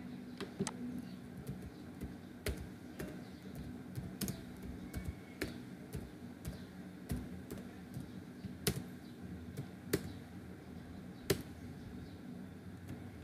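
Typing on a computer keyboard: irregular key clicks, with a few louder keystrokes in the second half, over a faint steady low hum.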